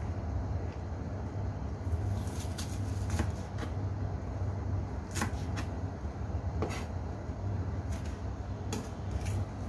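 Chef's knife chopping onion on a wooden cutting board: irregular sharp taps of the blade hitting the board, roughly one a second, over a steady low hum.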